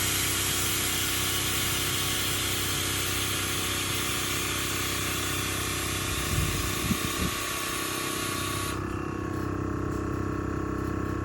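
Truck air-suspension system at work: the onboard air compressor hums steadily while a loud hiss of rushing air runs over it and cuts off about nine seconds in. A few low thumps come around six to seven seconds in.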